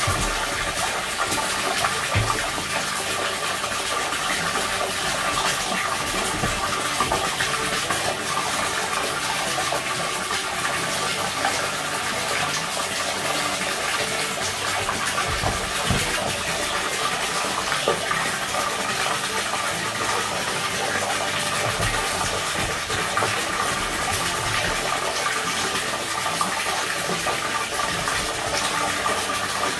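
Steady rush of a jet of water pouring and splashing into an inflatable paddling pool as it fills.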